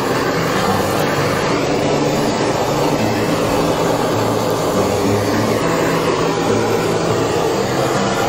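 Handheld butane kitchen blowtorch burning with a steady hiss, played over a honey-glazed roast chicken to dry and lightly crisp the glaze.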